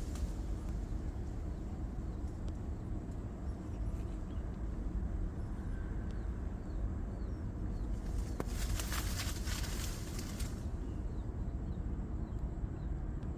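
Outdoor ambience with a steady low rumble of wind on the microphone and faint, short high bird chirps repeating every half second or so. A louder rustling burst comes in the middle and lasts about two seconds.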